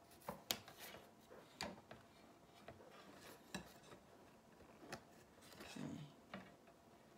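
Faint, irregular clicks and light rubbing from a pipe cleaner being looped and twisted around a metal wire wreath frame to fasten a sign.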